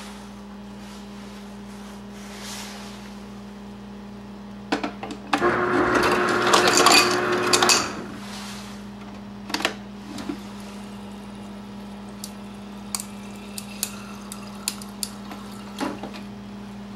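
A refrigerator's through-the-door ice dispenser runs for about two and a half seconds, its motor whirring as ice cubes clatter into a glass. It is followed by sharp clicks of the dispenser lever and light clinks of ice in the glass, over a steady low hum.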